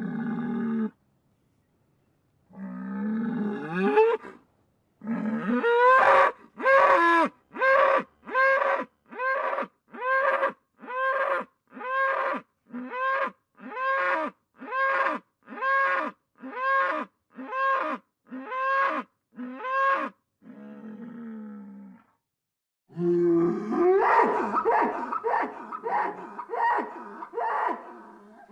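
Bull bellowing: a rising call, then a long run of short, evenly spaced calls about one a second, each dropping in pitch at the end, and a dense stretch of overlapping calls near the end.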